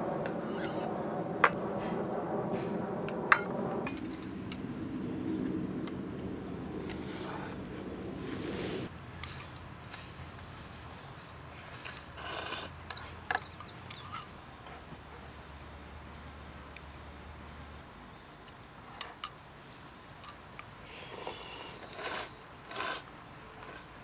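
Summer insects chirring in a steady high-pitched drone. Two sharp clinks near the start and a few fainter ones later, chopsticks and metal cups knocking together.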